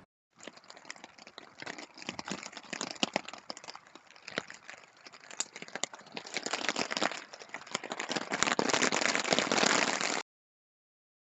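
Small campfire of moss and kindling crackling and popping as it catches, growing louder with a dense hiss of flame. It cuts off abruptly about ten seconds in.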